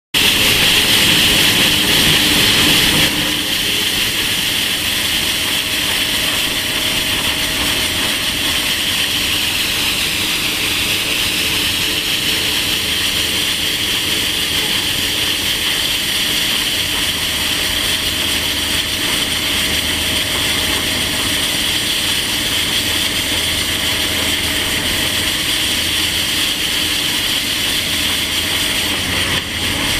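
Excavator-mounted hydraulic circular saw blade cutting into rock, with the excavator's engine running: a loud, steady grinding hiss, a little louder for the first few seconds.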